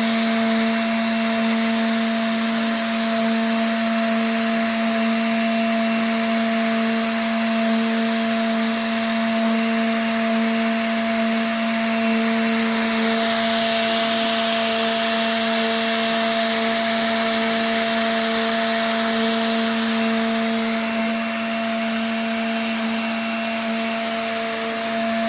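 Masterwood Teknomat CNC woodworking machining center running: a steady machine whine with an even hiss over it, and a fainter tone that cuts in and out about once a second.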